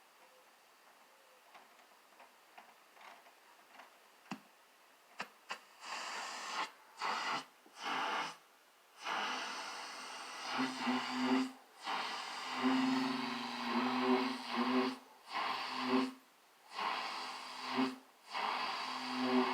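AM superheterodyne radio's speaker giving out static and a low buzz caused by RF interference from a tiny solid-state Tesla coil. The noise cuts in and out repeatedly. The first few seconds are nearly quiet, with a few clicks; the static starts about six seconds in and the buzz joins about halfway.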